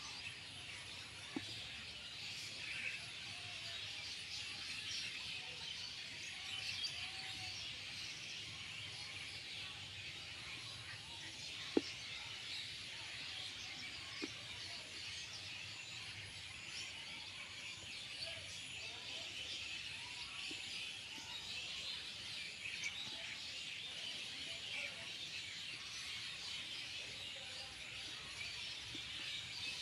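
A dense chorus of many small birds chirping all at once, a continuous overlapping twitter of short high chirps, with a few sharp clicks here and there.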